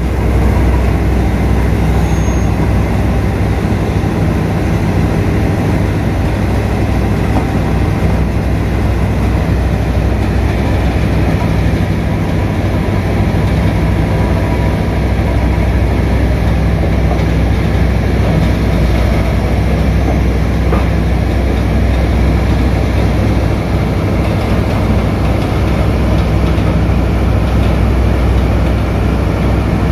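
Diesel power pack of a Cometto multi-axle transporter carrying a launcher crane, running steadily with a deep, even drone.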